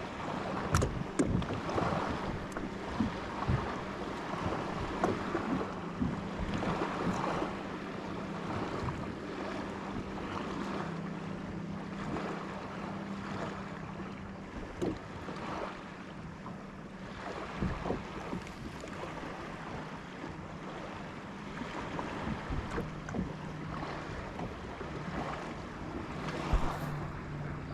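Water lapping against a kayak hull with wind on the microphone, a few small knocks in the first few seconds, and a low steady hum underneath that drops slightly in pitch about two-thirds of the way through.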